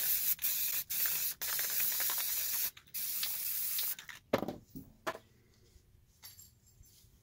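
Aerosol spray-paint can spraying in several hissing bursts with short breaks, stopping about four seconds in. A few short knocks follow about a second later.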